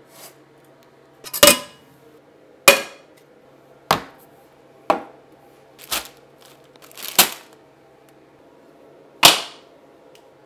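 Seven sharp clacks at uneven intervals of about one to two seconds, each dying away quickly, as cookware and groceries are set down on a glass-top electric stove and kitchen counter. A faint steady hum lies underneath.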